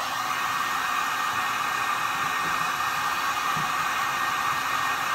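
Handheld electric heat gun running steadily, blowing hot air to shrink heat-shrink tubing over crimped butt connectors on a cable joint. It makes an even rush of air with a steady tone in it.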